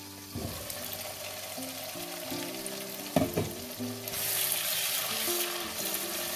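Sliced red onions sizzling in hot oil in a wok while being stirred with a wooden spatula, the frying louder from about four seconds in. A sharp knock about three seconds in.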